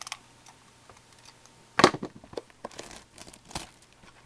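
Plastic wrap crinkling and tearing as a factory-sealed box of hockey cards is opened, with one sharp rip about two seconds in and smaller crackles after it.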